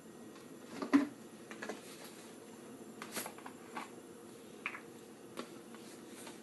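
A few light clicks and taps from a bottle of cooking oil being handled and poured at the stove. The sharpest tap comes about a second in, over a faint steady hum.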